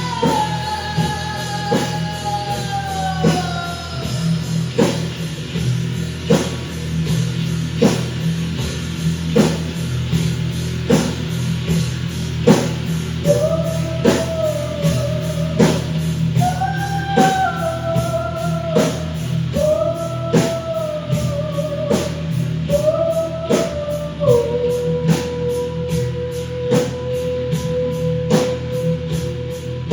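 A band playing rock music live, with a steady drum beat under a low sustained drone. A single melody line slides between notes and settles into a long held note in the second half.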